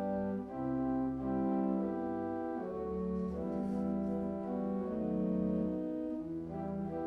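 Instrumental introduction to a sung psalm response: sustained chords changing about once a second, leading into the congregation's singing.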